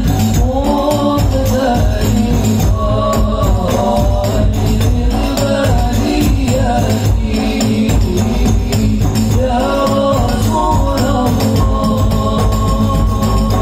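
Men singing an Islamic devotional song (sholawat) through a PA system, over a hadrah-style percussion ensemble of frame drums and large metal-bodied drums beating steadily.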